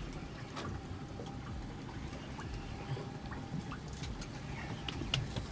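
Low water noise around a small boat at sea, with scattered faint clicks and knocks.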